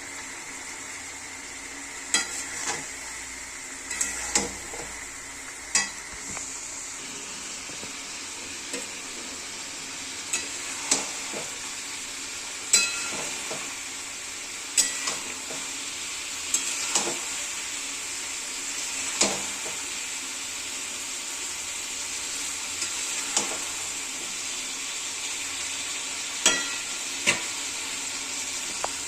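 Chicken and spices frying in a pan with a steady sizzle, while a spoon stirs and knocks against the pan with irregular sharp clinks every second or two.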